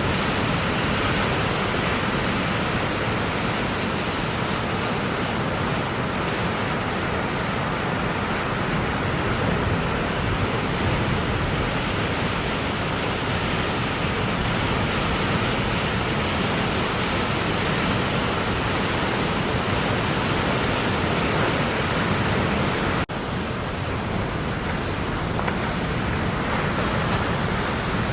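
Ocean surf rushing steadily, mixed with wind noise, as a continuous even roar with a brief dip about three-quarters of the way through.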